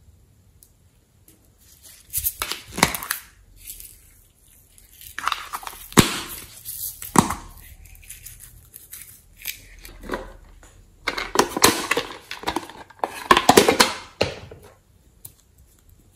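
Plastic packaging and small containers crinkling as they are handled and opened, in three bursts of several seconds with a few sharp clicks.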